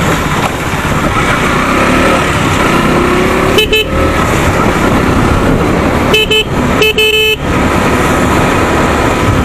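Motorcycle riding noise with wind and road rumble, and a vehicle horn honking three times: short toots about three and a half and six seconds in, then a longer one just after seven seconds.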